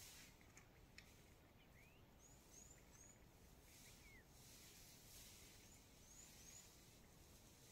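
Quiet bush ambience with small birds calling faintly: two runs of three short, quick rising chirps a few seconds apart, and a few lower sliding chirps between them.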